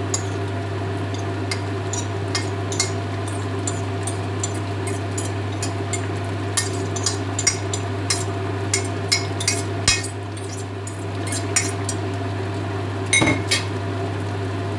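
A metal fork scraping and tapping against a china plate as tuna is pushed off it into a pan: a run of light clinks, thickest in the middle, with a louder clatter near the end. Under it runs a steady low hum.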